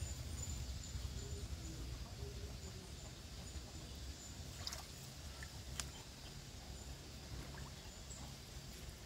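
Faint outdoor rural ambience: a steady high-pitched chirring over a low rumble, with a couple of sharp clicks about halfway through.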